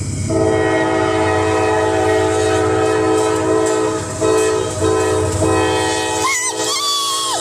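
Locomotive multi-chime air horn sounding a long, steady chord, with brief dips about four and five seconds in. A low rumble underneath drops away about six seconds in, and near the end a higher single tone glides up and holds.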